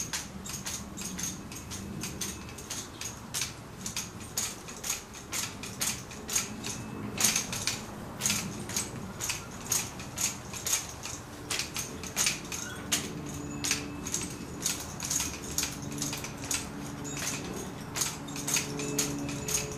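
Rifle spun overhead in one hand, its metal fittings clicking and rattling about three times a second, with the loudest clinks about seven seconds in.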